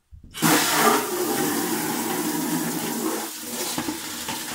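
Water running from a tap into a 10-litre plastic bucket, filling it. It starts suddenly about half a second in and runs on steadily.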